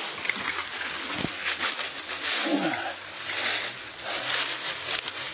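Footsteps crunching and rustling through dry leaf litter and brush, with a brief falling tone about halfway through.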